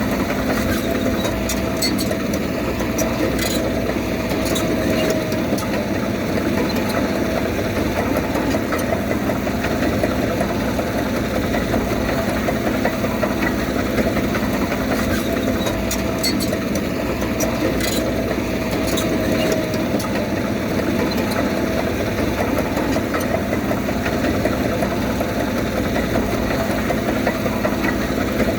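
Heavy earthmoving machine's diesel engine running steadily, with a faint wavering whine and a few light clicks.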